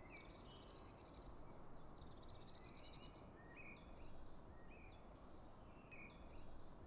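Faint birdsong: short chirps repeating every half-second to a second, over a quiet steady outdoor hiss.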